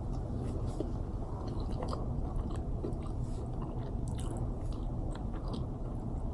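Close-up chewing of a Popeyes classic fried chicken sandwich, with small crisp crunches throughout, over a steady low background hum.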